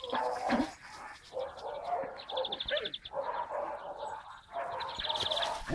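Dogs at play giving short yips, whines and barks several times over.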